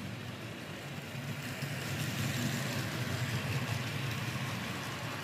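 HO-scale Rivarossi streamlined Hudson model locomotive with its old-style cab-mounted motor, pulling passenger cars along the track: a steady running hum that grows louder from about a second and a half in as the train passes close.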